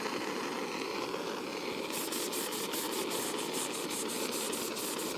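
Terry-cloth towel rubbed quickly back and forth over a steel compressor rotor: a run of faint swishing strokes, about four a second, starting about two seconds in. A steady background hum runs underneath.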